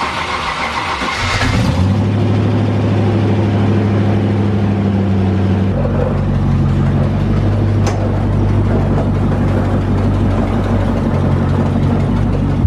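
Land Rover Discovery 1's V8 engine starting and settling into a steady idle within the first two seconds. Its note shifts about six seconds in as the truck pulls away slowly, with a single sharp click near eight seconds.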